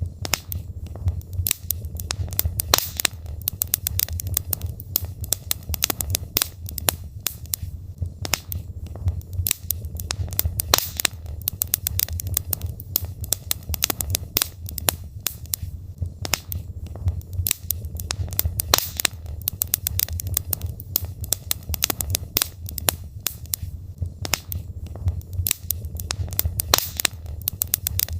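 Wood logs burning in a fireplace, crackling and popping irregularly many times a second over a steady low rumble of the flames.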